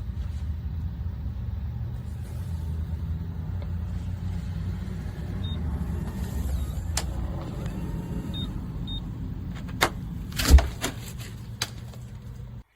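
A steady low rumble, with a few sharp clicks in the second half and a louder knock about ten and a half seconds in.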